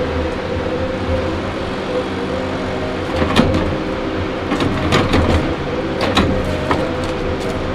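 Heavy diesel engine of a loaded Kenworth log truck running steadily, with a handful of sharp metallic clanks and rattles from about three to six and a half seconds in.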